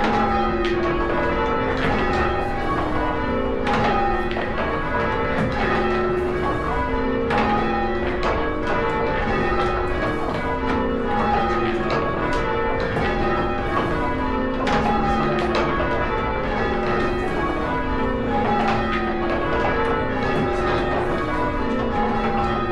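Church tower bells rung in changes: a steady, unbroken stream of strikes, one bell after another in turn, each note ringing on into the next.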